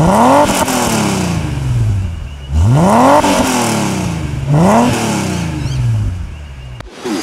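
Holden VS Commodore's engine revved three times, each rev climbing quickly and then dropping back slowly toward idle.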